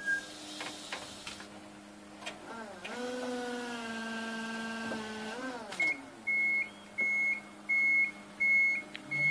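Electric forklift's hydraulic pump motor whining up to a steady pitch, running for about three seconds and winding down as it works the hydraulic drum clamp. Then the forklift's reversing alarm beeps steadily, a little more than once a second.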